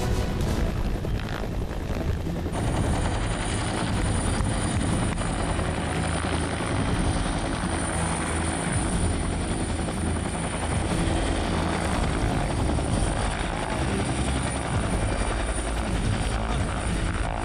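Helicopter flying with its rotor and turbine running steadily. A steady high whine joins in about two and a half seconds in.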